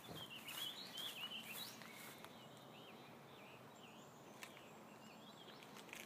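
Faint, high chirping calls of small birds, repeated over and over, clearest in the first two seconds and then softer.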